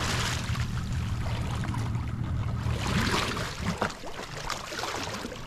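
Small rescue boat moving through floodwater, with water swishing and lapping at the hull. A low hum fades out about halfway through.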